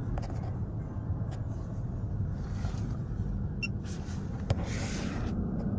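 Cabin sound of a Lexus RX350 driving on a wet road: a steady low drone of engine and tyres with tyre hiss, and a few faint clicks.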